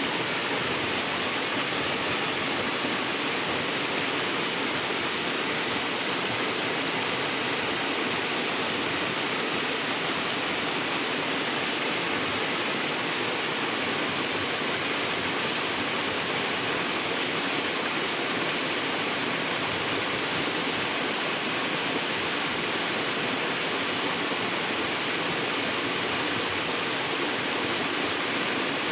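Waterfall and river water rushing: a steady, even roar of falling and flowing water that does not change.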